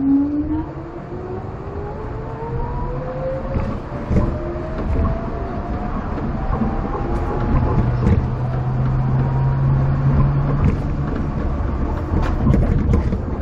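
Rubber-tyred people-mover train accelerating away from a station. Its motor whine rises steadily in pitch over about eight seconds above the rumble of the tyres on the concrete guideway, with a few knocks.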